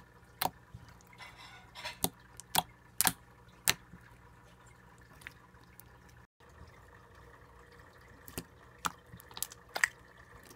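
Fluffy slime being squeezed and poked by hand, giving short wet pops and clicks. The pops come in a cluster over the first few seconds and another near the end, with a quieter stretch between.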